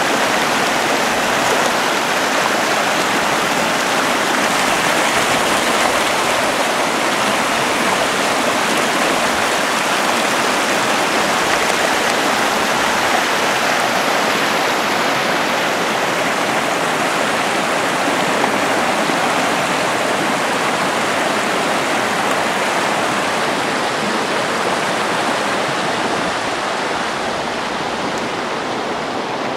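Shallow stream water rushing steadily over rocks, an even loud wash that eases slightly near the end.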